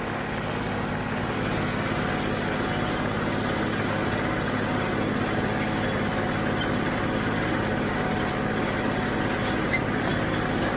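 John Deere 5055D tractor's three-cylinder diesel running steadily under load while pulling a John Deere 348 square baler through the hay.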